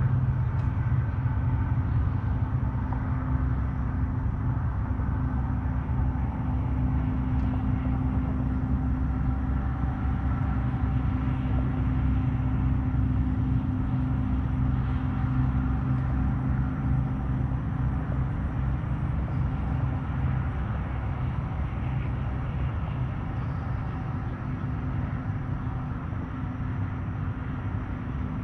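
A steady, low mechanical hum at a constant pitch, like a running engine or motor, fading slightly near the end.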